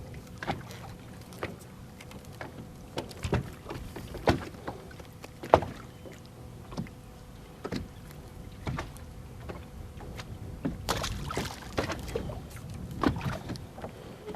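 Irregular knocks and clicks on a fishing boat, roughly one a second, over a steady low rumble.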